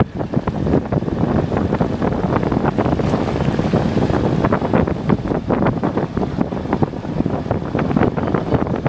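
Wind buffeting the microphone of a moving car, over road and engine noise: a steady low rushing broken by rapid, uneven gusts.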